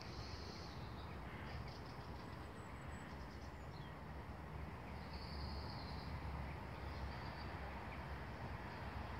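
Quiet outdoor ambience: a steady low rumble, with faint high calls briefly near the start and again about five seconds in.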